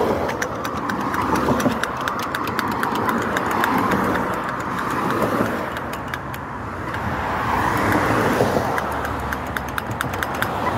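Road traffic passing close by: a van going past at the start, then vehicles swelling past and fading in two waves, with wind on the microphone and a run of light clicks.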